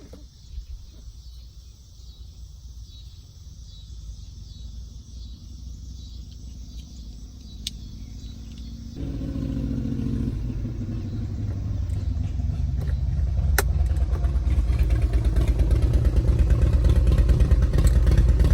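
Cabin climate-control blower fan coming on about halfway through and rising in steps to a loud, steady rush of air, with a couple of sharp clicks along the way.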